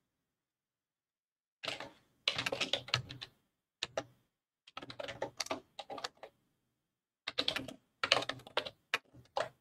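Typing on a computer keyboard in several quick runs of keystrokes with short pauses between them.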